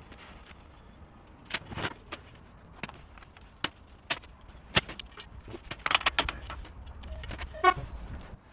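Spanner and loose metal parts clinking and tapping against the cylinder and fittings of a Chaika ML-20B outboard motor during its dismantling, an irregular scatter of sharp clicks and knocks. One short ringing squeak near the end.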